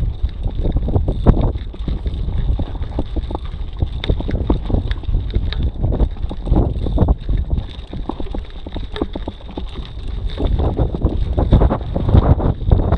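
Wind buffeting the camera microphone, with the crunch and rattle of mountain-bike tyres rolling slowly over loose gravel; the wind gets stronger near the end.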